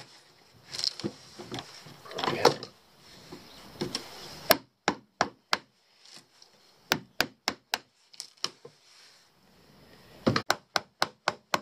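Wooden mallet driving a chisel into rotten transom wood on a fibreglass boat, in three runs of sharp knocks, about three to four blows a second. Wood scraping and cracking as it is levered out comes before the knocks.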